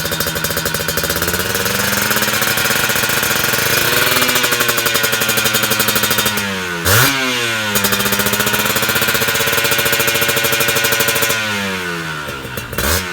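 Kawasaki Ninja two-stroke single running through a KDX aftermarket expansion-chamber exhaust, revved in place. The revs climb and are held high, drop sharply and snap back up about seven seconds in, which is the loudest moment, then sag near the end with a quick blip.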